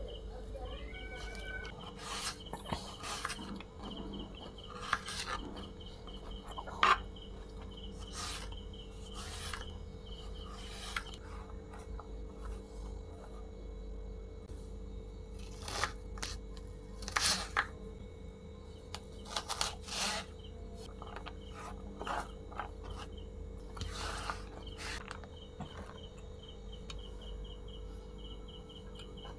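Kitchen knife cutting cabbage and carrots on a wooden cutting board: scattered, irregular sharp knocks and scrapes, over a steady hum and a faint, rapidly repeating chirp.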